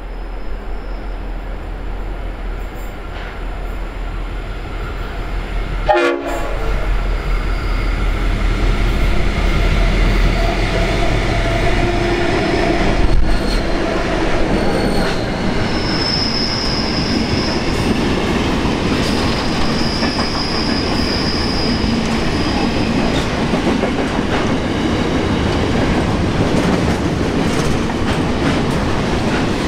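Diesel-hauled grain train passing close by. The locomotive's low engine rumble grows as it approaches and ends about 13 seconds in as it passes beneath, then hopper wagons roll past with steady wheel clatter. A high-pitched wheel squeal runs for a few seconds midway.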